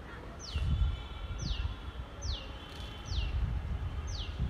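A bird calling repeatedly: a short, clear whistle sliding steeply down in pitch, about once a second, five times. Low wind rumble buffets the microphone underneath, gusting up about half a second in and again near the end.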